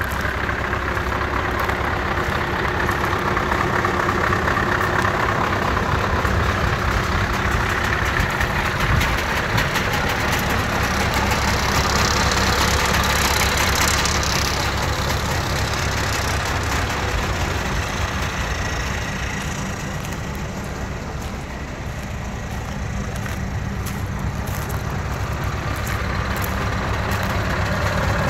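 Scania R580's V8 diesel engine idling steadily, getting louder over the last few seconds.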